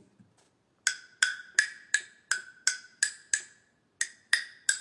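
Wooden tone block struck with a wooden stick: eight short, pitched wooden knocks at an even pace of about three a second, then a brief pause and three more knocks near the end.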